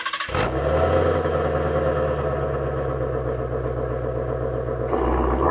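Ford Shelby GT350's V8 idling steadily at the exhaust tips, a deep, even burble. Near the end the sound swells as the engine begins to rev.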